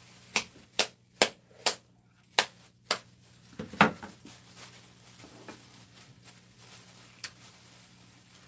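Kitchen scissors snipping through steamed seafood, about six sharp snips roughly half a second apart, followed by a heavier clack as the scissors are set down on the ceramic serving plate.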